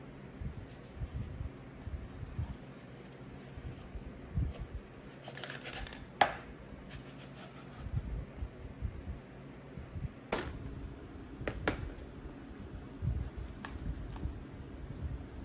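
Hand-handling noises of a bent license-plate sleeve and an aluminium can being fitted together: light scrapes and rubs with a few sharp clicks, the loudest about six seconds in. A steady low hum runs underneath.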